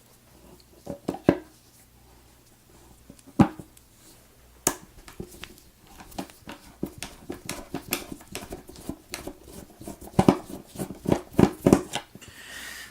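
Small metallic clicks, taps and knocks as the retaining screw is worked out of an American S1100 padlock body with a screwdriver and the lock's parts are handled. A few louder knocks stand out among a run of quick light ticks in the second half.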